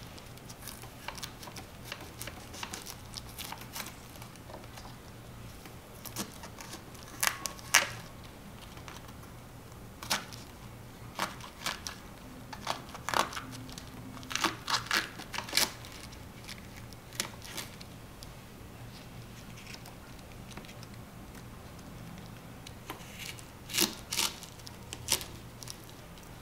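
Leaves being pulled and snapped off a miniature cabbage and a small knife cutting into it on a wooden board: crisp tearing and crunching snaps in scattered clusters. A faint steady low hum runs underneath.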